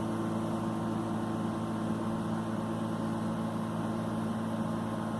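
A steady low mechanical hum, even in pitch and level.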